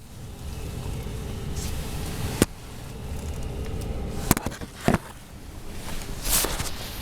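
Steady low rumble of a running vehicle engine, with three sharp knocks or clicks about two and a half, four and a quarter and five seconds in, and some rustling near the end.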